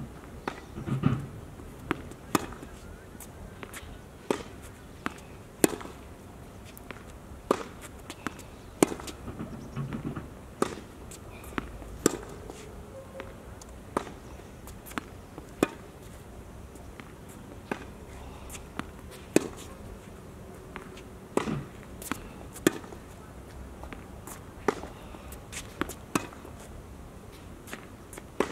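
Tennis rally on a hard court: sharp pops, roughly one every second, of rackets striking the ball and the ball bouncing on the court.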